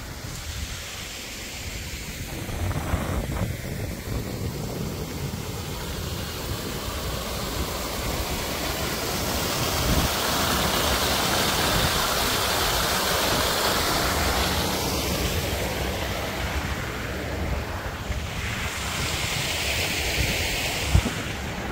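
Wind rushing over the microphone, swelling and fading with low buffeting rumble, and one sharp knock near the end.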